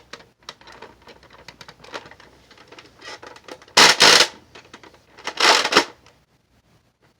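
Bolt of a bolt-action Nerf blaster, with no magazine fitted, being worked: light clicking and ticking, then two louder sliding strokes about a second and a half apart. The owner calls the action super crunchy and takes the sound as a sign that something is wrong with the blaster.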